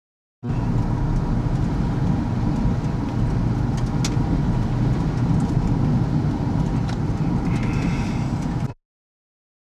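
Steady road and engine noise heard from inside a moving car, with one sharp click about four seconds in. It starts abruptly about half a second in and cuts off shortly before the end.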